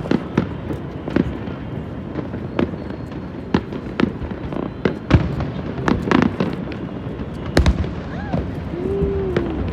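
Fireworks bursting in an irregular string of sharp bangs, about one every second, with a heavier boom a little past seven seconds in.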